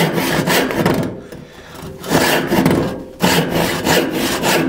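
Hand crosscut saw with too much set sawing across a board in repeated strokes, with a lighter stretch about a second in. It sounds aggressive, taking a lot of wood, because the teeth are set too wide.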